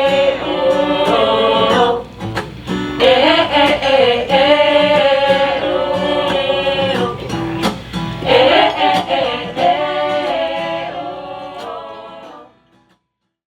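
A mixed choir singing with instrumental accompaniment, in long held phrases with two short breaks, fading out near the end.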